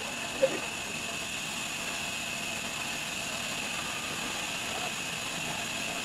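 Sawmill band saw running without cutting: a steady hum with a constant high whine. A single sharp knock about half a second in.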